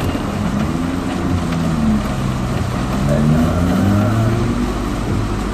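Car engine accelerating away, heard from inside the cabin: its pitch climbs, drops about two seconds in as it changes gear, then climbs again, over a steady hiss of heavy rain.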